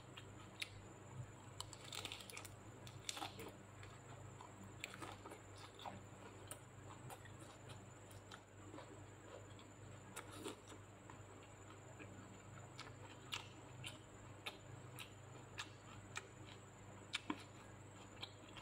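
Faint, irregular wet clicks and smacks of a person chewing a mouthful of food, a pok choy leaf wrapped around rice and side dishes, with lips closed, over a low steady hum.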